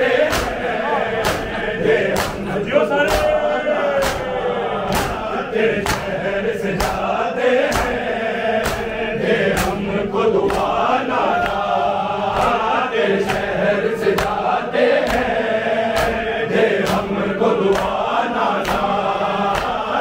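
A crowd of men chanting a noha, a mourning lament, in unison, over rhythmic matam: hands slapping chests together about three times every two seconds.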